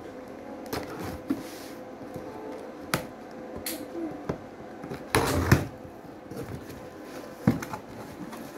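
Cardboard boxes being handled: scuffs and light knocks of cardboard, with a sharp click about three seconds in and a short, louder rip about five seconds in as packing tape is peeled off.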